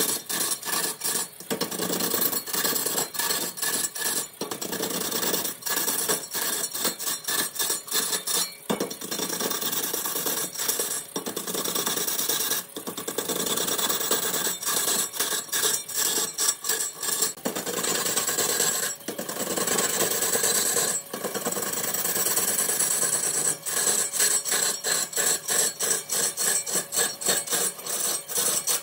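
A turning tool cutting a redwood blank on a large wood lathe: a continuous rough, rasping scrape broken by rapid, uneven catches and brief dips.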